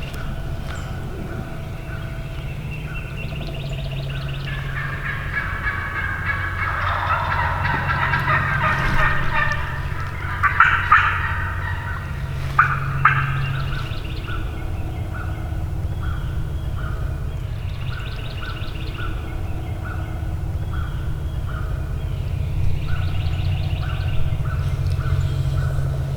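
Wild turkeys gobbling in the woods, the loudest gobbles about halfway through. A steady series of short, evenly repeated calls runs underneath throughout.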